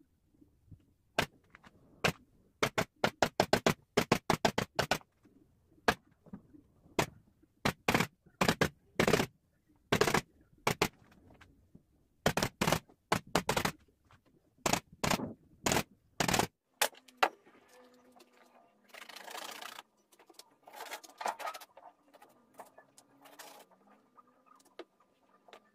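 Pneumatic upholstery staple gun shooting staples through fabric into a wooden sofa frame: dozens of sharp single shots in quick irregular runs, several a second at times, stopping about two thirds of the way through. Softer rustling of the fabric being handled follows.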